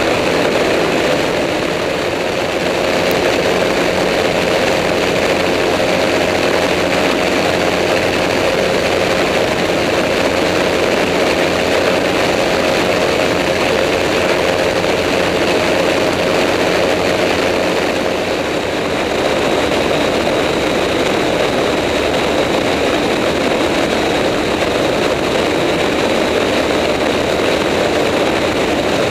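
Engine and propeller of an amphibious Cygnet ultralight trike running steadily in cruise flight. The level dips slightly and briefly about two seconds in and again after about nineteen seconds.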